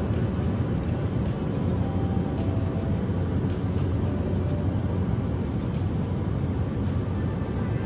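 Steady drone of a small tour aircraft's engine and airflow, heard from inside the cabin, deep and unchanging throughout.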